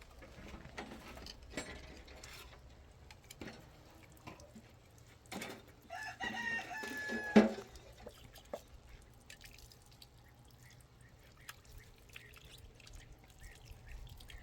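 A rooster crowing once, about six seconds in, a drawn-out call lasting about a second and a half, with faint scattered clicks and knocks around it.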